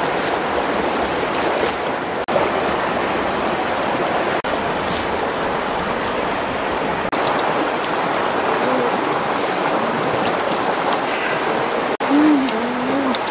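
Fast-flowing river rushing over rocks, a steady rush of water.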